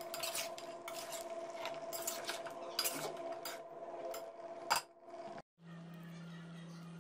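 A metal slotted spatula scraping and knocking against a large metal cooking pot as chicken pieces are stirred and turned in ghee, with one louder clank a little before five seconds in. The sound then cuts out briefly and gives way to a steady low hum.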